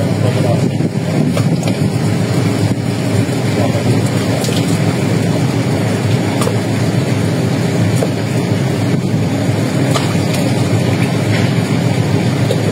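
Fishing trawler's diesel engine running steadily as the boat motors past, a low rumble mixed with wind buffeting the microphone.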